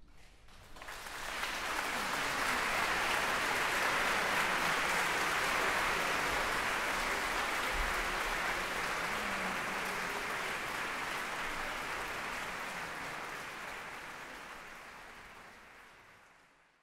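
Concert-hall audience applauding. The applause breaks out about a second in, holds steady and fades away near the end.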